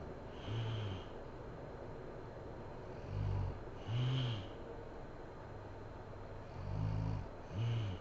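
A sleeping woman snoring: five short, low snores, each about half a second. After the first, they come in pairs about a second apart, over a steady background hiss.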